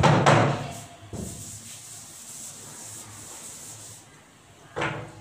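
Chalkboard duster rubbing across a blackboard, erasing chalk: a steady scrubbing hiss over several seconds. A brief loud burst opens it and a shorter one comes near the end.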